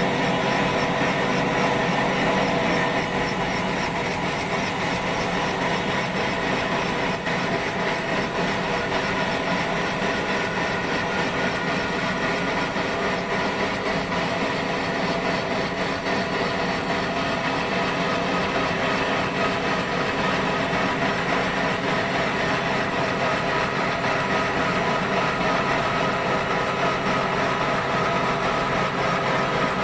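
Sawmill saw running steadily while cutting through dry wood, an unbroken machine whine with a dense hum under it.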